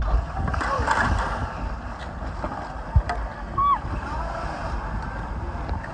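Wind rumbling on the microphone over water and boat noise aboard a sailing catamaran, with faint voices early on, a sharp click about halfway, and a short high cry a little after.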